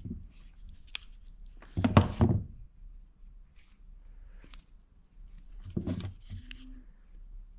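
Metal crimping pliers set down on a wooden workbench with a cluster of knocks about two seconds in, then picked up and handled with a second, smaller knock near six seconds. Light clicks of handling fall in between.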